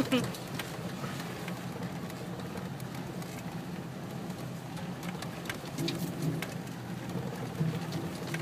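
Off-road vehicle's engine running slowly, heard from inside the cabin as a steady low drone that swells briefly a few times, with scattered clicks and knocks as the vehicle bumps over the rough track.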